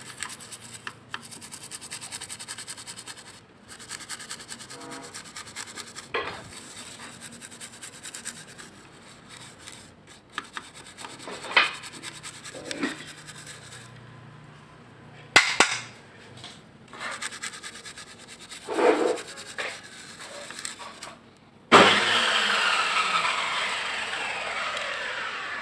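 A brush scrubbing over the Roland SPD-20's circuit board in quick scratchy strokes, broken by a few short knocks. A loud rushing hiss starts near the end.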